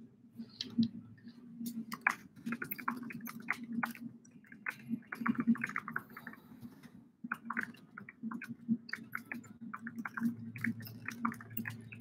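Irregular clicking and tapping of a computer keyboard being typed on, in quick clusters with short pauses, over a steady low hum.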